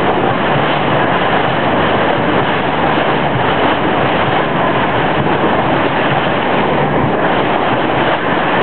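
Chao Phraya Express Boat under way, heard from on board: its engine runs steadily under a constant rush of water.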